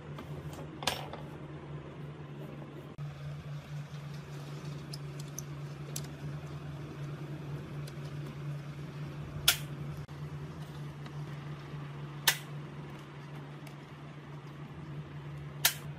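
Hex key working the screws of a speaker's front driver panel: four sharp clicks, one about a second in and three a few seconds apart in the second half, over a steady low hum.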